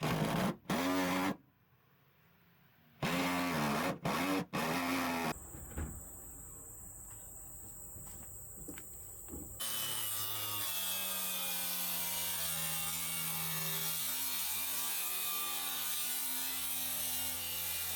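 Electric drill boring a starter hole through a bus's steel wall. It runs in several short bursts, its motor pitch rising and falling, over the first five seconds. From about ten seconds in it makes one long, steady cut.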